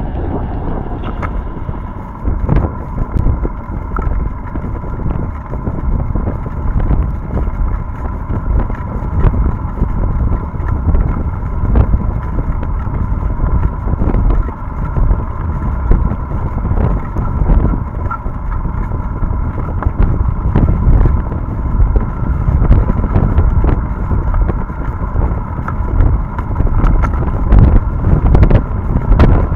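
Wind buffeting the camera's microphone during a ride on a wet road, a gusty low rumble that grows louder about two seconds in. A faint steady whine and scattered small ticks run through it.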